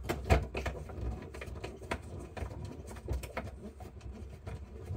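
A long screw being put in and driven into the refrigerator's side panel: a run of irregular small clicks and knocks from the screw and the panel being handled.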